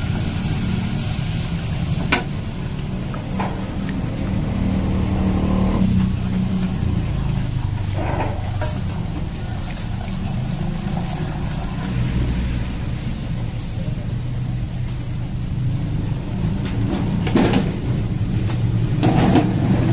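A steady low mechanical rumble, with a few sharp knocks of a wooden spatula against an aluminium pot as flour is stirred into melted butter for a roux.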